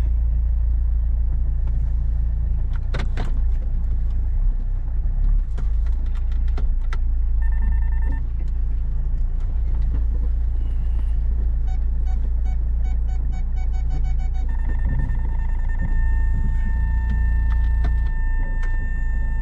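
Car engine idling, a steady low rumble heard from inside the cabin. Electronic tones sound over it: a short tone about seven seconds in, a run of quick beeps around twelve seconds, then a held tone from about fourteen seconds on.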